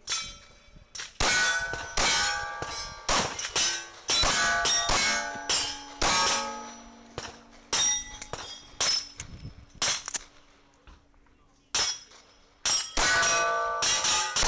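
9mm Glock 19 pistol firing a fast string of shots at steel targets, the hit plates ringing with a clang after the shots, one ringing on for several seconds. The shots come unevenly, at times two or three within a second, with a pause of about two seconds late on before the firing resumes.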